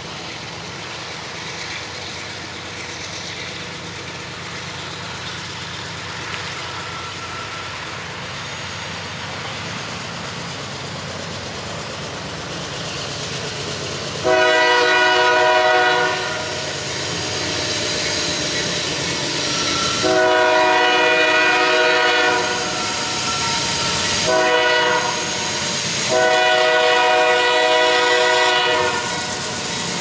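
Union Pacific GE AC4400CW locomotive horn sounding the grade-crossing signal: two long blasts, one short and one long, starting about halfway through. Beneath it a steady low rumble grows slowly as the train approaches.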